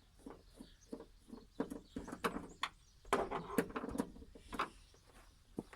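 Irregular light clicks and knocks of a screwdriver and hands on a TV's plastic back casing while a last screw is taken out, busiest around the middle.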